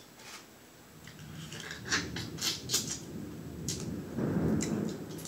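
Snow crab shell being broken apart by hand and the meat picked out: a run of sharp cracks and snaps, thickest about two to three seconds in, with a denser rustling and crunching stretch about four seconds in.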